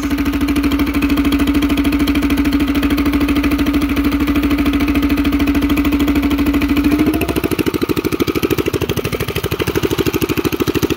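Small single-cylinder go-kart engine idling, its exhaust firing into a rusty old muffler held up to the pipe, which adds a strong steady hum. About seven seconds in the hum stops and the plain exhaust pulses carry on, a little quieter.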